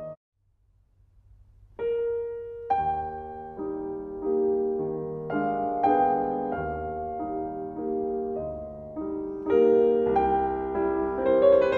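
Slow, gentle piano music: a brief silence at the start, then held notes and chords resume about two seconds in.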